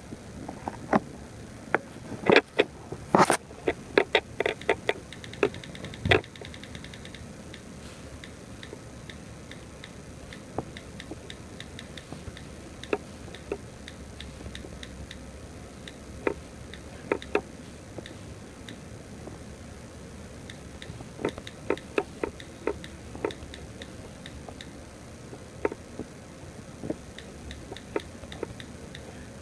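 Typing on a tablet's on-screen keyboard: irregular sharp clicks of key taps in quick runs, densest in the first several seconds, then sparse with pauses, and in runs again in the last third.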